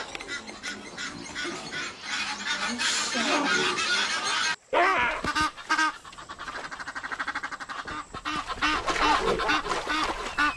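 Egyptian geese honking in rapid, harsh, repeated calls, with a short break about halfway through.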